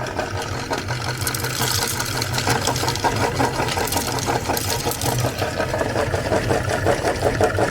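Electric meat grinder motor running with a steady hum while its auger crushes Oreo cookies and M&M candies, giving a dense, rapid crunching and crackling that starts about a second in.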